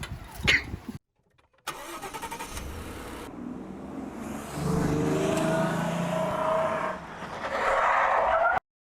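A motor vehicle's engine running, its pitch rising slowly in the middle and getting louder near the end, after a brief cut of silence about a second in; it stops abruptly near the end.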